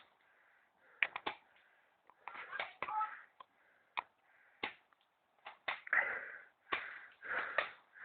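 Irregular sharp clicks and snaps, about a dozen, between short bursts of rustling or breathy noise.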